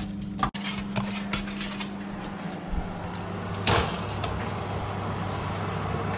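Potato and sweet potato chips tumbling from a steel pot onto a paper-lined baking tray in a run of light clicks, then a sharp knock a little before halfway as the metal tray is slid onto the oven shelf. A steady low hum runs underneath.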